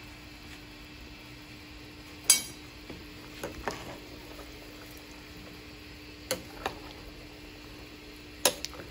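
A metal spoon clinking against a stainless steel stockpot of beans and water: about six sharp clinks spread out, the loudest about two seconds in. A faint steady hum runs underneath.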